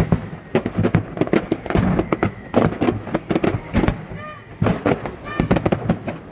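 Fireworks display: aerial shells bursting in a rapid, irregular run of bangs. Two brief pitched sounds come through about four and five seconds in.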